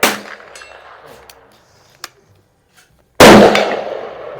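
Gunshots echoing across an outdoor range. A sharp shot at the start dies away, a faint click comes about two seconds in, and then a much louder shot with a long echo follows about three seconds in.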